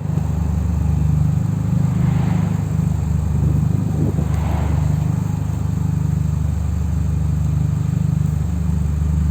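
Mini Cooper S R53's supercharged 1.6-litre four-cylinder idling steadily through an aftermarket cat-back exhaust, with a low, even note.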